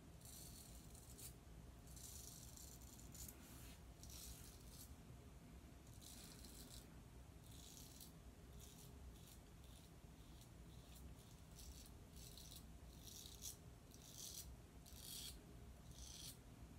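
Merkur Progress double-edge safety razor with a Gillette 7 o'clock blade scraping through lathered stubble in short, faint strokes, one after another with brief pauses. It is a third pass against the grain.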